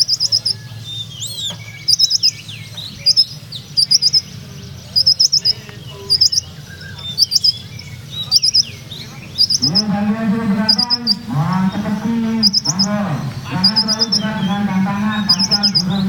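Caged sunbird (kolibri ninja) singing: quick clusters of high, thin chirps about once a second, with gliding notes beneath. From about ten seconds in, a louder low voice-like sound runs underneath.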